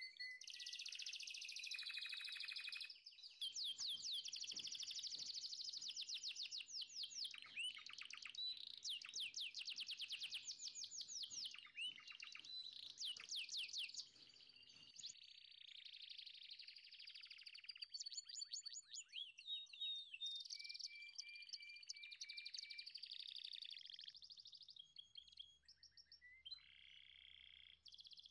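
Small birds chirping and trilling: rapid runs of high, quick chirps, densest in the first half and sparser after.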